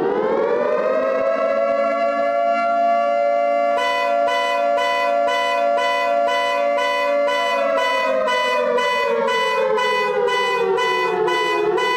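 Emergency alarm siren that has just wound up and holds a steady high wail. About four seconds in, a higher tone starts pulsing over it, two to three times a second. Past the middle, the main wail slowly sags in pitch.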